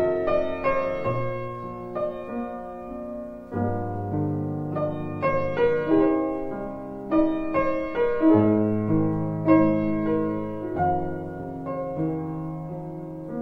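Background piano music: a slow, calm piece of held bass notes that change every couple of seconds, with single notes played above them.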